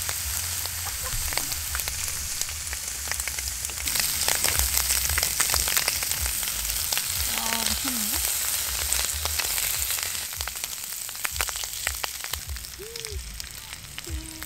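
Beef sizzling as it cooks, a steady crackling hiss that grows louder about four seconds in and eases off near the end.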